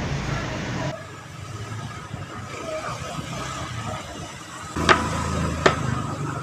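Roadside background noise with a motor vehicle's engine running, which drops off abruptly about a second in to a quieter steady hum. Near the end come three sharp clicks, a little under a second apart.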